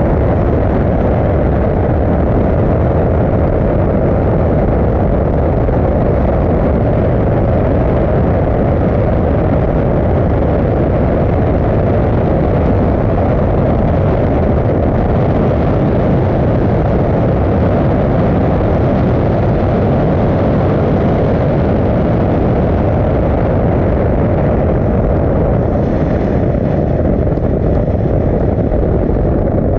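Steady, loud wind rush and road noise of a Toyota GR Supra at speed on a wet race track, picked up by a camera mounted on the outside of the car.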